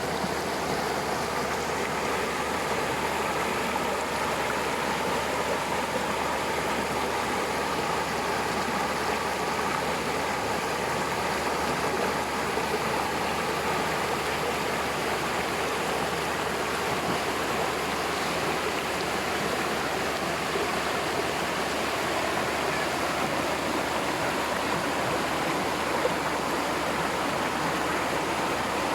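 Waterfall: water pouring and rushing in a steady, unbroken wash of noise.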